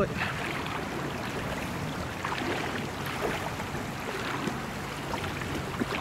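Steady rushing of a river's current as a man wades across it against the flow.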